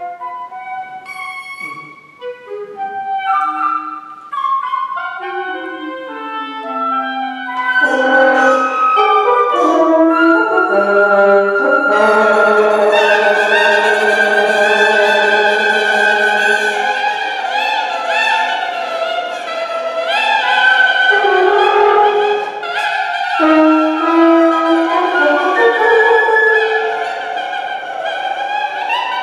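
Woodwind quintet (flute, oboe, clarinet, bassoon and horn) playing live. It begins with sparse, separate notes, then about a quarter of the way in swells into a dense texture of held chords.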